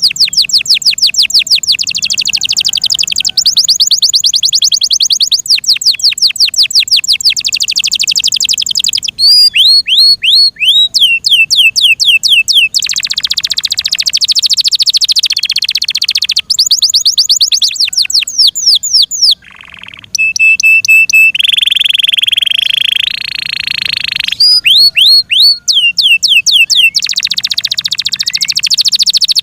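F1 Yorkshire-cross canary singing a loud, continuous song of fast trills and rolls, switching to a new phrase every second or two, with a brief pause about two-thirds of the way through.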